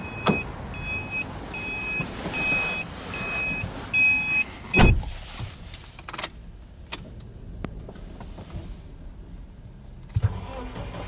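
A Subaru Forester's warning chime beeping repeatedly, about seven short electronic beeps, while the driver's door stands open. The chime stops when the door shuts with a heavy thud about five seconds in. A few small clicks follow as the ignition is switched on.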